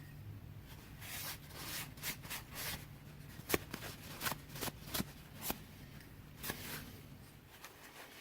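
Short rubbing and scraping strokes with a few sharp clicks, the sound of knife handle scales being handled and checked for fit against the blade's tang. A faint steady low hum lies underneath.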